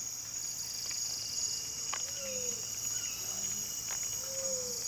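Steady high-pitched drone of rainforest insects, with two faint short whistles, one about two seconds in and one near the end.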